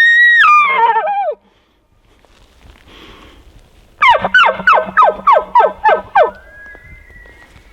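Bull elk bugling. A high whistle breaks and drops off about a second in. After a pause comes a rapid series of about nine grunting chuckles, each sliding down in pitch, and a fainter, more distant whistled bugle is held near the end.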